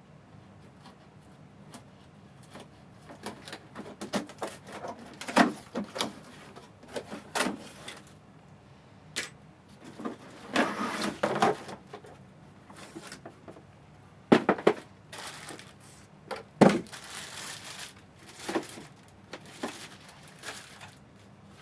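A cardboard box being opened and its contents handled: irregular knocks, clicks, scrapes and rustling.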